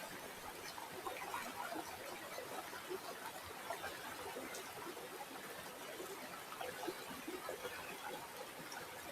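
River water flowing steadily, a continuous rush of many small irregular splashes.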